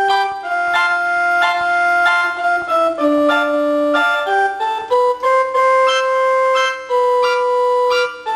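Casio LK-120 electronic keyboard playing a slow two-part tune. Held notes sit in an upper melody with a lower line beneath, each note sounding steady for up to a second or so before the next.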